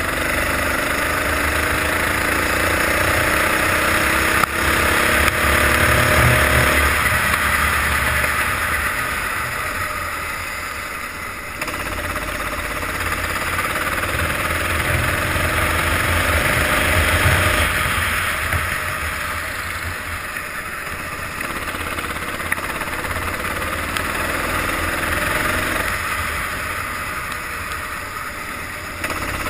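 Go-kart engine heard on board at full throttle, its pitch climbing along the straights and falling away each time the throttle is lifted for a corner, several times over, under a steady hiss of wind and wet track.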